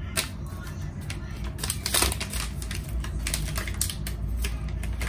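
Foil sachet crinkling and rustling in the hand as it is torn open, a quick run of crisp crackles that is loudest about two seconds in.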